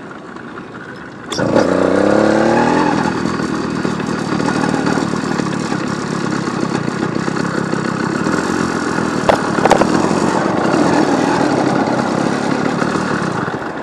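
A small two-stroke engine on a motorized bicycle starts about a second in, revs up with a rising pitch, then keeps running steadily as the bike rides off. Two sharp clicks come partway through.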